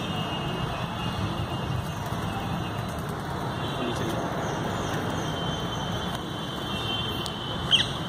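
Steady outdoor background rumble like distant road traffic, with a short high chirp near the end.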